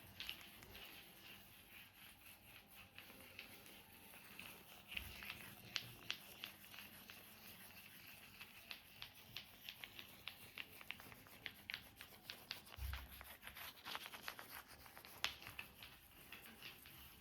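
Faint back massage on bare skin: quiet rubbing with many small scattered taps and crackles, growing busier after a few seconds, and a couple of soft low thumps.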